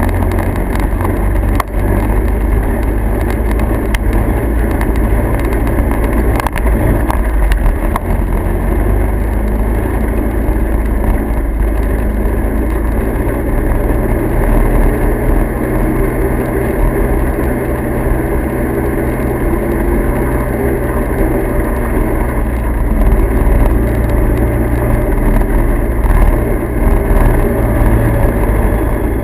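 A motor vehicle running steadily, its engine drone heavy at the low end with a constant rushing noise over it.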